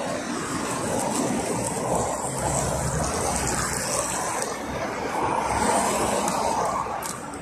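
Road traffic passing close by: cars driving past with tyre and engine noise, swelling as each car goes by, loudest about two seconds in and again around six seconds in.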